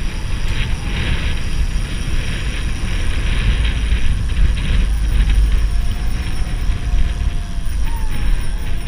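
Wind buffeting the microphone as a steady low rumble, mixed with the road noise of a Rans Seavo recumbent tandem bicycle rolling along at speed.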